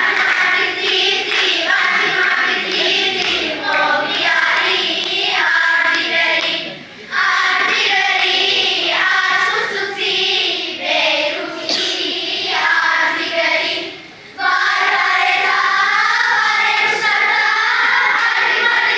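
A large group of children singing together on stage, in phrases with two brief pauses between them.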